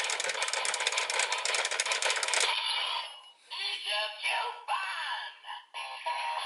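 Zenkai Buckle transformation toy running a transformation sequence: a fast clicking rattle for about two and a half seconds, then electronic voice and music phrases with sliding tones from its small speaker.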